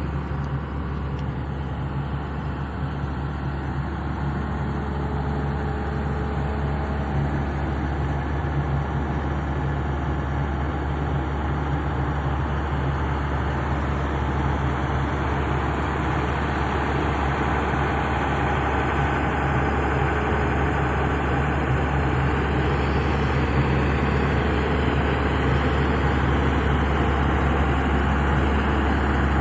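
Excavator's diesel engine running steadily, its low drone growing gradually louder.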